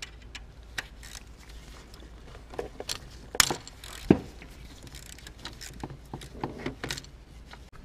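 Scattered small metal clicks and clinks of a hand tool working on the high-pressure fuel pump's Torx mounting studs. Two sharper knocks come about three and a half and four seconds in.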